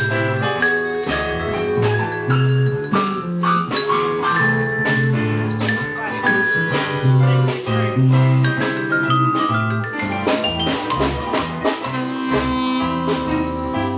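Jazz played on a Yamaha digital piano, quick melodic runs over a moving low line, with drums keeping time.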